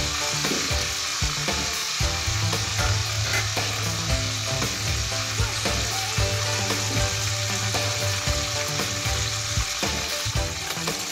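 Chicken leg and garlic cloves frying in hot oil in a nonstick wok: a steady, dense sizzle. A low steady hum runs underneath from about two seconds in until near the end, and metal tongs move the meat in the pan near the end.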